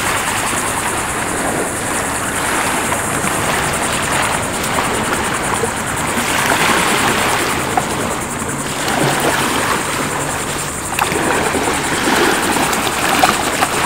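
Wind rushing over the microphone with small waves lapping and splashing in shallow water, and a few brief splashes near the end.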